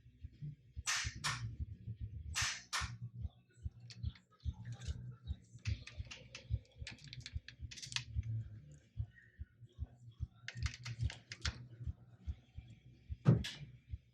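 Ratcheting clicks of a torque wrench tightening the oil drain plug: a few paired clicks, then quick runs of clicks, and one louder single click near the end.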